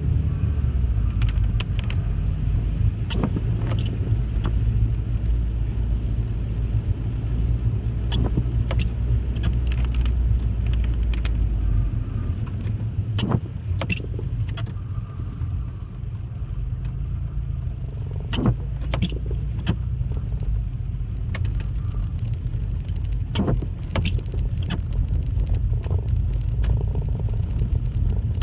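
Car driving, heard from inside the cabin: a steady low engine and road rumble with frequent sharp rattling clicks. The deepest part of the rumble drops away about twelve seconds in.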